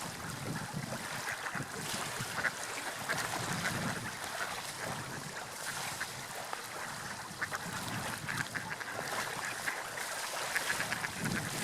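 Water lapping and splashing, with many small splashes over a steady wash.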